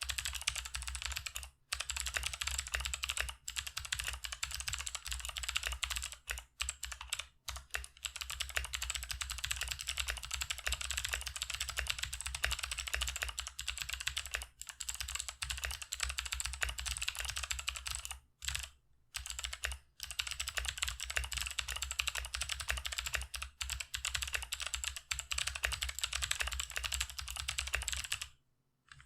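Mechanical keyboard with stock, unlubricated NovelKeys Sherbet clicky switches being typed on rapidly, a steady stream of sharp, fairly high-pitched clicks with a few short pauses, the longest near the end. A little spring ping can be heard in these switches.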